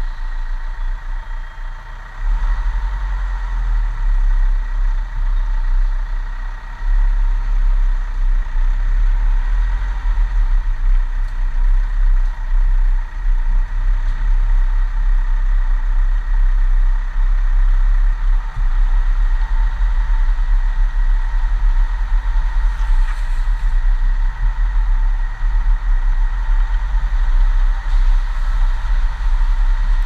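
Vehicle engine running as it drives slowly along a rutted dirt lane, with a heavy low rumble that grows louder about two seconds in.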